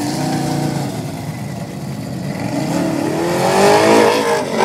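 Formula Offroad hill-climb car's engine revving hard under full load as it climbs a steep sand hill, its pitch rising over the last second or so.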